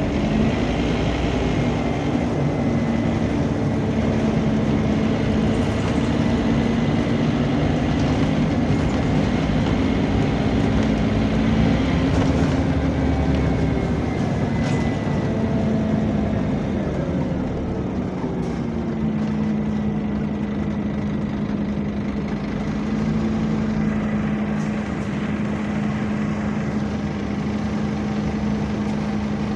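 Scania bus's engine and radiator cooling fan running, heard from inside the saloon while the bus is under way: a steady pitched hum over road noise that drops in pitch about two-thirds of the way through and holds at the lower note, with a few light rattles.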